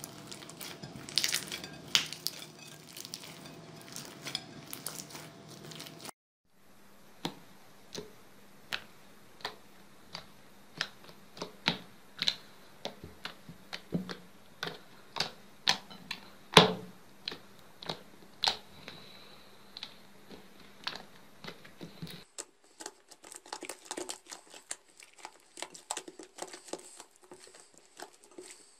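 Slime squeezed and poked by hand in a bowl. First come wet crackles and clicks. Then, after a cut, a string of separate sharp pops about two a second as fingers press into puffy slime. Then comes dense, fine crackling.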